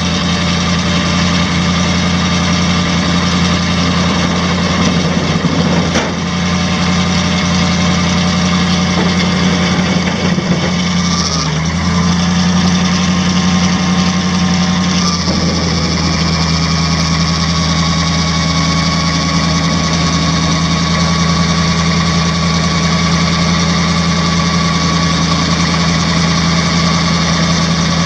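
Eight-cylinder gasoline engine of a 1977 International Loadstar 1700 truck idling steadily. Its note dips briefly and shifts about eleven seconds in, then shifts again a few seconds later.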